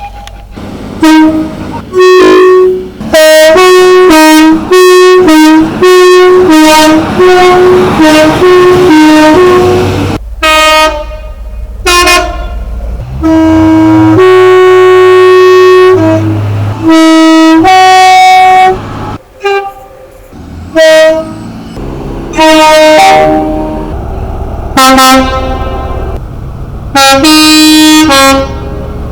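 Two-tone train horns of British trains sounding a long series of blasts that alternate between a high and a low note. The blasts are mostly short and quick in the first ten seconds, then longer and held, with a low engine rumble under some of them.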